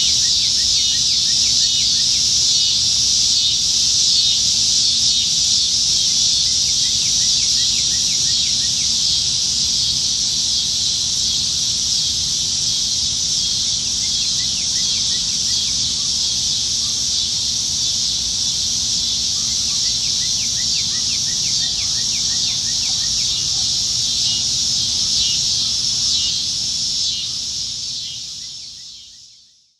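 Chorus of cicadas singing, a steady, dense high-pitched buzz that fades out over the last few seconds.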